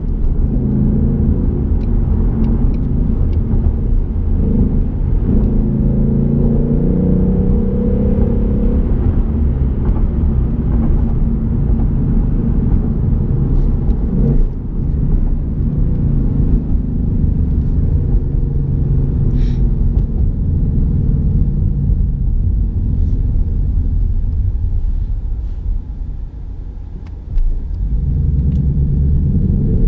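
2018 Ford Mustang GT's 5.0-litre V8 running under way, its note rising and falling as it is driven through the gears of the manual gearbox. There is a brief break about halfway through, and a quieter lull near the end before the engine picks up again.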